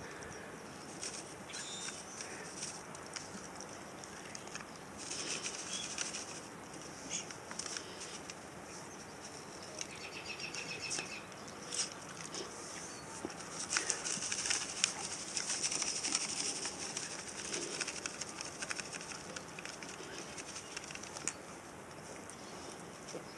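Small dogs' claws ticking and pattering on concrete as they move about hunting, with scattered short clicks and bursts of high hiss around five seconds in and again in the middle.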